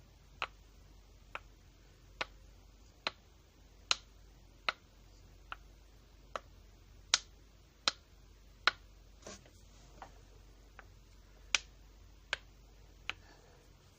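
A slow, even series of sharp clicks made as an ASMR trigger, about one every 0.8 seconds, some louder than others.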